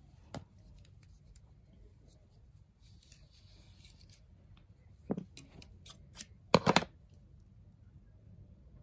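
Scissors cutting sewing thread: scattered light clicks and a soft rustle, then a tight cluster of sharp snips, the loudest sound, about two-thirds of the way in.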